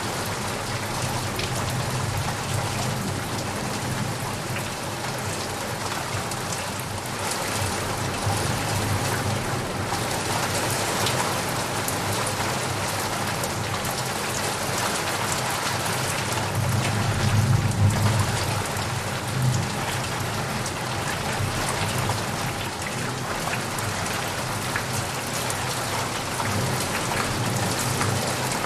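Heavy rain pouring steadily, with a low rumble of thunder swelling and fading about two-thirds of the way through.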